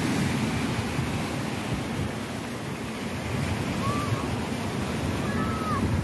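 Sea waves washing onto a beach in a steady rushing surf, with wind buffeting the microphone.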